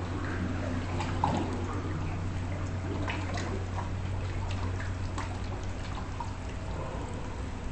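Floodwater trickling and dripping into standing water on a flooded floor, with scattered small drips and splashes, over a steady low hum that weakens near the end.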